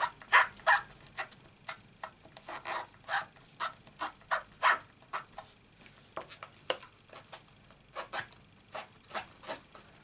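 A cloth being rubbed over an inked clear stamp on an acrylic block to wipe the ink off, in short rubbing strokes about two or three a second with a brief pause just past the middle.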